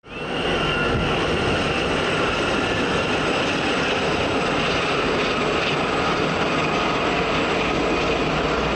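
Several Aérospatiale Gazelle military helicopters flying overhead: a steady rotor and engine noise with a faint, steady high whine. It fades in at the very start.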